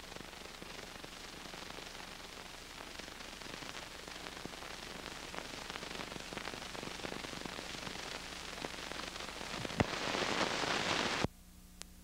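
Hiss and crackle of an old film soundtrack, with scattered clicks, growing louder and then cutting off suddenly about eleven seconds in, leaving only a faint low hum.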